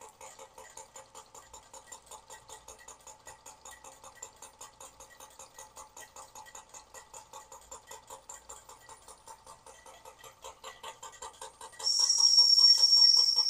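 Weeden 670 toy steam engine running its belt-driven accessories, with a rapid, even chuffing and clatter. Near the end a steam whistle blows loudly and steadily on one high pitch.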